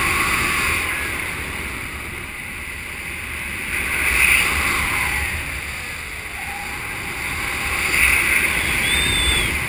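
Wind rushing over a helmet- or harness-mounted action camera's microphone in paraglider flight, swelling and fading three times as the glider turns. A faint short whistle sounds near the end.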